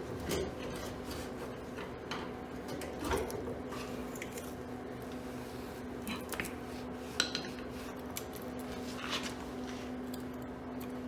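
Hand tools clinking and tapping against the metal parts of a truck's front suspension during shock-absorber work: scattered sharp clicks and knocks, the loudest about three and seven seconds in, over a faint steady hum.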